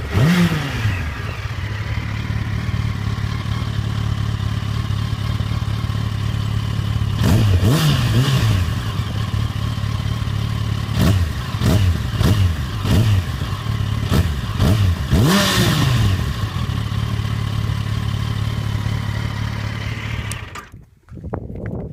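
Yamaha FZ1-S's inline-four engine on its stock exhaust idling steadily, blipped with the throttle several times in a row, with the revs rising and falling back to idle after each blip. The sound cuts off near the end.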